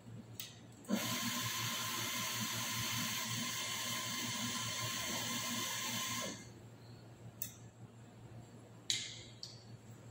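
Espresso machine steam wand hissing with a steady whistle for about five seconds, switched on and off abruptly. A few short clicks follow.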